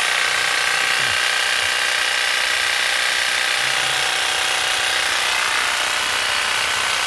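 Ruby 180 W electric hedge trimmer running steadily, its motor and reciprocating blades making an even buzzing whir, running smoothly.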